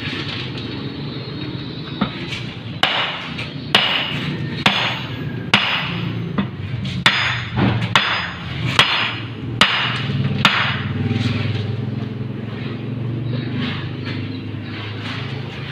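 Hammer blows, about ten sharp strikes roughly a second apart through the middle of the stretch.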